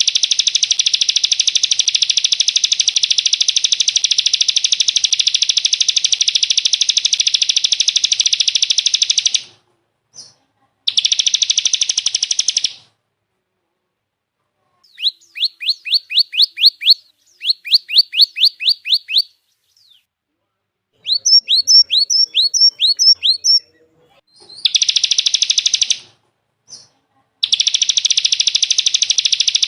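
Recorded songbird song: a loud, very fast, unbroken high trill, broken off after about nine seconds by short pauses and runs of about eight sharp sliding notes each, then the rapid trill returns near the end.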